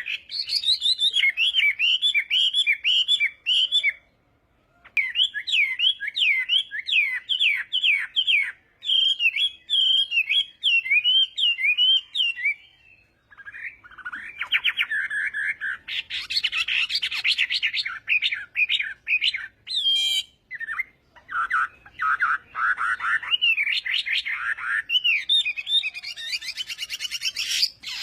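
Chinese hwamei singing: long runs of rapid, varied whistled notes, broken by short pauses about four and thirteen seconds in, and densest and loudest a little past halfway.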